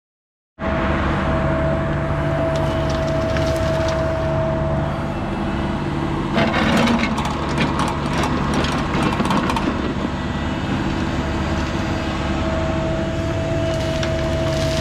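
A mini excavator's diesel engine running steadily with a high held whine, cutting in suddenly after a moment of silence. Crackling and cracking over it as the bucket digs topsoil, heaviest about six to seven seconds in and again near the end.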